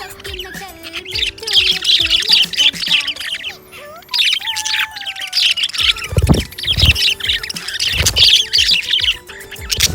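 Budgies chattering and chirping fast, in two long runs of busy warbling, with a few low thuds in the second half.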